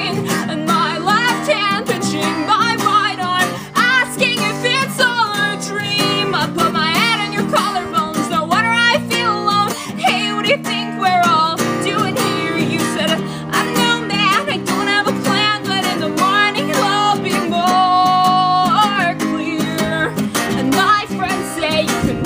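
A woman singing with a strummed acoustic guitar in a live solo acoustic folk-punk performance. One long held note comes about 18 seconds in.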